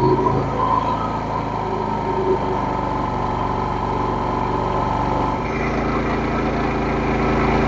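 AI-Power 8000 W inverter generator's 459cc engine running steadily under load. About five and a half seconds in, its note changes and grows slightly louder as the 5-ton air conditioner's compressor comes on and the load jumps to about 5 kW.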